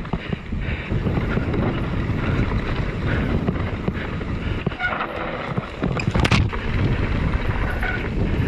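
Mountain bike descending a dirt trail: tyres running over dirt with wind buffeting the camera microphone, the bike rattling and clicking over bumps, and a sharp knock about six seconds in.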